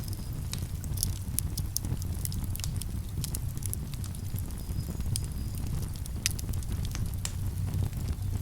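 Wood campfire crackling, with irregular sharp pops and snaps, over the steady low rush of a calm river.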